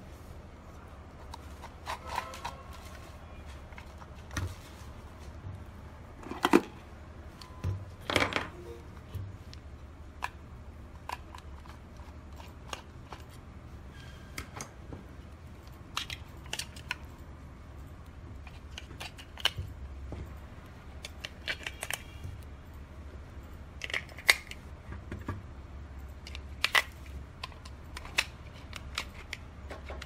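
Scattered clicks and knocks of hard plastic and AA batteries being handled and fitted into a plastic AA battery holder, over a steady low hum.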